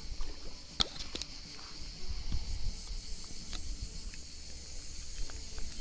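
A steady, high insect chorus of summer insects in the background, with a few sharp clicks about a second in and once more a little later, and some low rumble on the microphone from about two seconds in.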